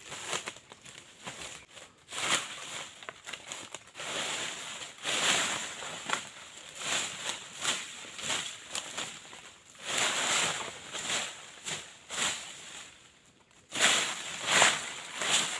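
Dry teak leaf litter rustling and crunching in irregular bursts as someone moves through or clears it, with a short lull near the end before louder crunches.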